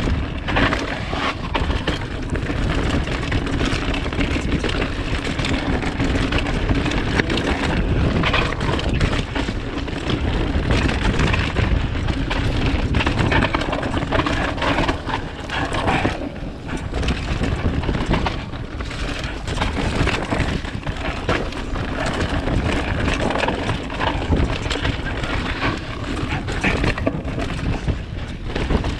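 A mountain bike riding down a dirt trail: wind buffets the microphone while the tyres run over rough ground and the bike rattles and knocks over bumps throughout.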